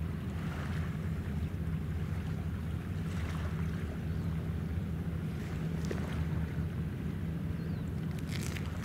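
Steady low drone of ship machinery, with light wind and water noise and a few faint clicks near the end.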